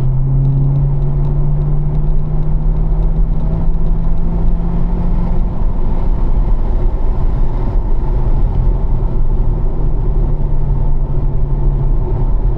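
Corvette V8 engine pulling at low revs in fourth gear, its pitch rising a little as the car gathers speed, then easing off about six seconds in as the driver lifts for the next turn, over steady wind and tyre noise in the cabin.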